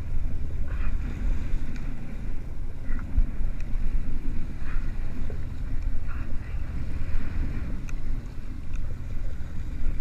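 Steady low rumble of wind buffeting the microphone over a boat's engine running, with a few faint short chirps.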